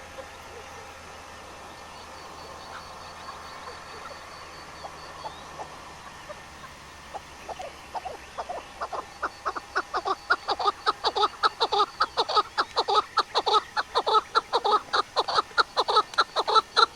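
A bird calling in a fast, even series of notes, about five a second, starting about seven seconds in and growing steadily louder. Before that there is only a faint background with a short run of high ticks.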